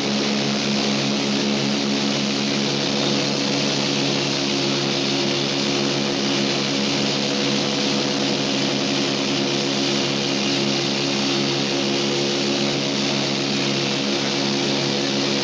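Douglas DC-3's twin radial piston engines and propellers heard from inside the cabin, a steady loud drone at high power in the climb after take-off.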